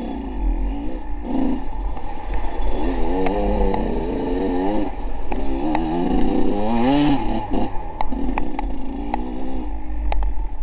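Engines running and revving, their pitch rising and falling over a steady low rumble, with a few sharp clicks near the end.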